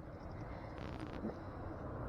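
Steady rushing of a fast-flowing creek, with a short scratchy rasp about a second in.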